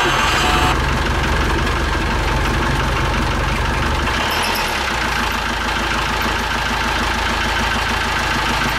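Sailboat's inboard diesel engine running steadily just after being restarted following a fuel-line repair and bleeding. A high-pitched squeal rides on it at first and cuts off within the first second; it is a screaming noise that the owner puts down to a loose alternator belt.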